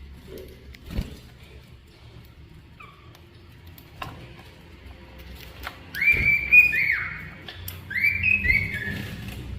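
Cockatiel whistling its song in two short phrases of gliding notes, the first about six seconds in and the second about two seconds later. A couple of light knocks come earlier.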